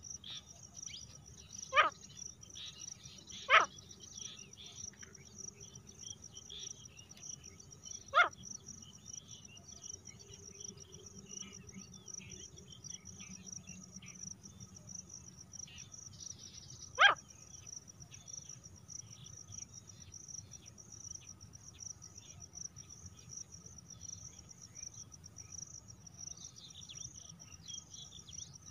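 Female grey francolin giving short single calls that fall sharply in pitch, four times, spaced irregularly, over a steady high chorus of crickets.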